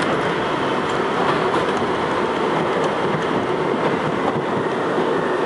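R62A subway train running through a tunnel: a steady, loud noise of wheels on the rails.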